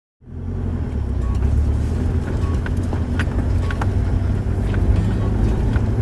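Mitsubishi Triton ute driving over a rough dirt track: a steady low engine and road rumble with scattered knocks and rattles. It starts abruptly just after the beginning.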